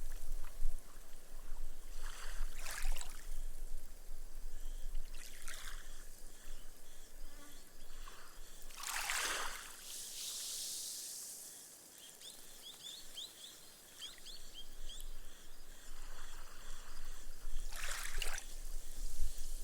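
Gentle ripples washing up a sandy beach and soaking into the sand, fizzing away as foam. Four soft hissing washes come in, the largest about nine seconds in, with fine crackling of draining foam between them.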